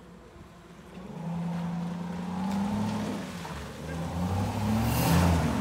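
Lexus 3UZ-FE V8 in a Datsun 280Z picking up about a second in and running with its pitch rising twice as it is revved, dipping briefly in between.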